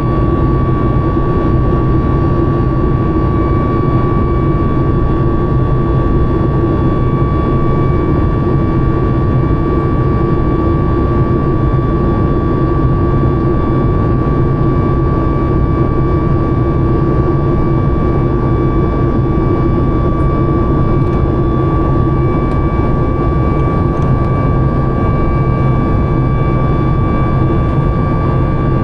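Boeing 737 MAX 9's CFM LEAP-1B turbofan engines running steadily, heard from inside the passenger cabin: a constant low rumble and rush of air with a steady high whine.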